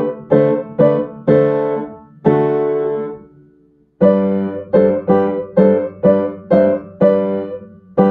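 Piano played with both hands: four-part hymn chords, struck about twice a second. One chord is held and fades about three seconds in, then after a brief break the chords start again and end on a held chord.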